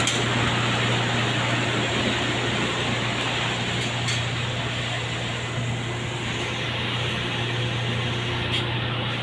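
Steady blower hiss over a low hum inside a Hino truck's cab, from the air-conditioning fan and the idling engine.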